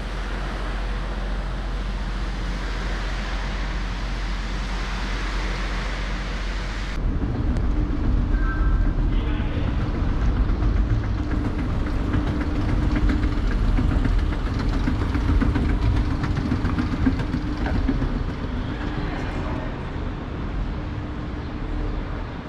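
A steady hiss, which cuts off about seven seconds in. An escalator then runs with a steady mechanical hum and a low rumble from its steps and drive, easing off near the end.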